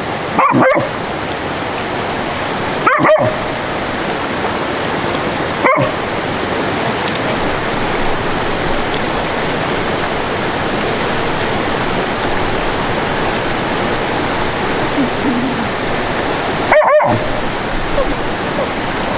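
A stream's water rushing steadily, with a dog barking four times: three single barks a few seconds apart, then a last one after a long gap.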